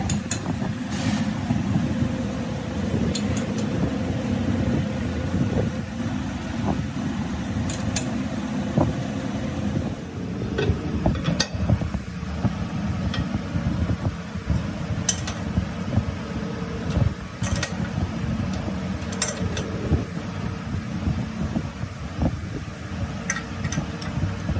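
Workshop machinery running steadily, with scattered sharp metallic clinks and taps as a truck flywheel is handled and set in a lathe chuck.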